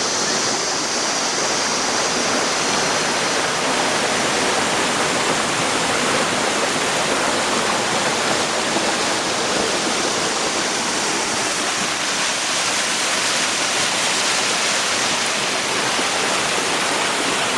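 Waterfall pouring into a pool, a steady loud rush of falling water.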